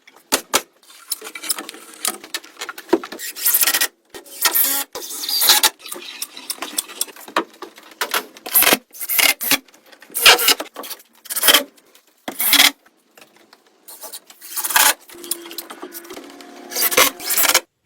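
Irregular sharp clacks and knocks of hard objects, with scraping and rubbing between them.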